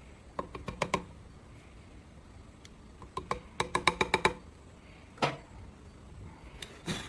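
Clusters of sharp clicks and knocks from hard objects being handled: a few just under a second in, a quick run of about eight clicks between three and four and a half seconds, then single knocks after five seconds and near the end.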